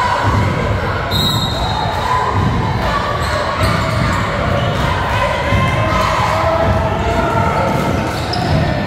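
Basketball bouncing and players' feet thudding on a hardwood gym floor during live play, under a steady murmur of crowd voices in a large gym, with a brief high-pitched sound about a second in.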